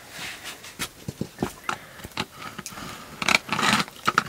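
Scattered light clicks and scrapes of plates and utensils being handled at a meal, with a short breathy sound about three seconds in.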